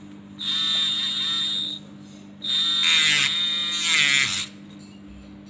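Small handheld electric grinder running in two bursts of about one and a half and two seconds, its whine dipping and rising in pitch as it bites. It is grinding on a phone circuit board during the replacement of the power-management IC.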